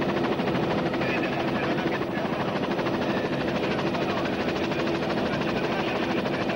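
Helicopter running steadily: a fast, even rotor beat over a constant engine drone.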